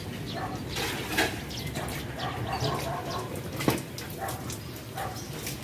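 Scattered knocks and clicks of a person moving through a concrete drainage culvert, with a sharper knock about a second in and another near four seconds in. A dog barks now and then in the background.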